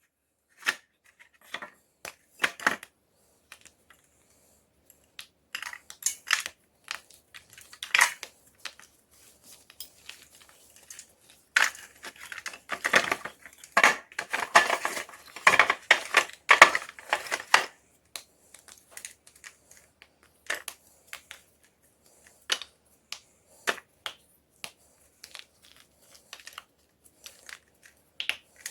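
A homemade disc of gym chalk being crushed: a series of sharp, dry crunches and crackles, coming thickest and loudest in a dense run midway through.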